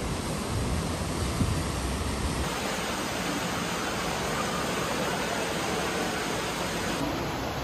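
Steady rushing of whitewater from a river cascade, with a low rumble underneath. About two and a half seconds in, it gives way to a lighter, even hiss of water splashing into an indoor aquarium tank.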